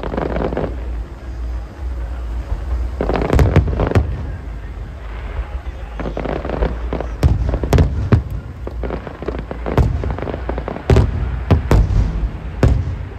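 Aerial firework shells bursting in a string of a dozen or so sharp bangs, some in quick pairs, with a low rumble carrying on between them.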